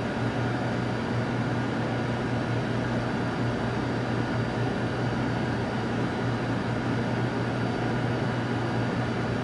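Steady room ventilation noise: a constant low hum under an even rushing hiss, with a faint steady whine above it, unchanging throughout.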